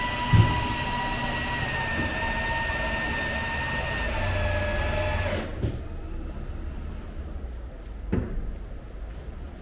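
Electric lift-bed drive running as it raises the bed, a steady motor whine that sinks slowly in pitch and stops abruptly about five and a half seconds in. A knock comes just after it starts, and a lighter thump comes later.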